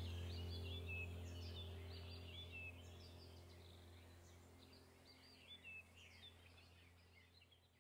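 Small birds chirping and twittering over a steady low hum, the whole bed fading out gradually to near silence near the end.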